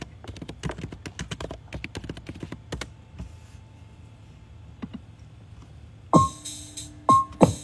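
Quick, irregular taps and clicks of fingernails on a phone screen for about three seconds. About six seconds in, a song starts playing, with sharp struck notes and deep bass notes that slide down in pitch.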